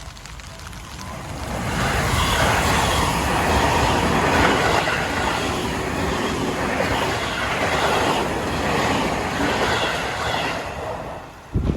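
Seibu Shinjuku Line electric train passing over a level crossing, its wheels clacking on the rails. It builds up over about two seconds, stays loud for about eight, then fades, with a short low thump at the very end.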